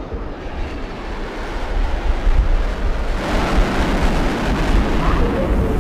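Jet engine rumble of a formation of one Embraer AEW&C aircraft and four Rafale fighters flying past overhead. It is a deep rushing roar that swells about two seconds in and stays loudest through the middle.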